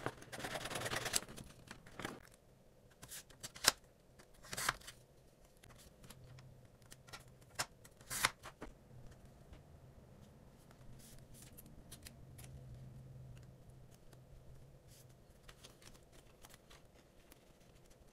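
Rustling of paper and plastic as album pages and photocards are handled and slid into plastic binder sleeves. A burst of rustling comes at the start, with a few sharp clicks and taps around four and eight seconds in, then softer scattered rustles.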